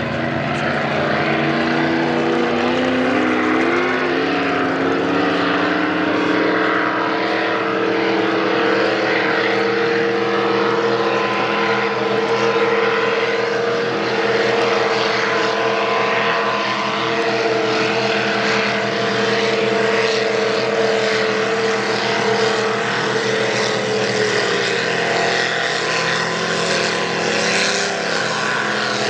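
High-powered race boat engines running at full speed. The steady engine note climbs in pitch over the first several seconds, holds high, and eases a little near the end.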